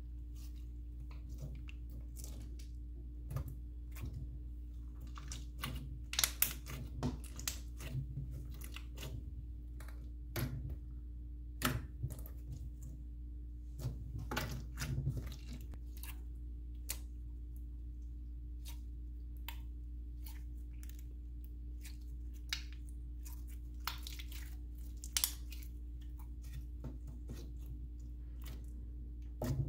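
Stiff, tough putty slime being squeezed and pressed by hand, giving irregular sticky clicks and crackles.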